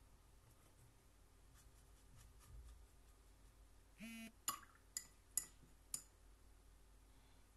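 A brief buzz, then four sharp ringing clinks about half a second apart, as a paintbrush is tapped against a glass water jar.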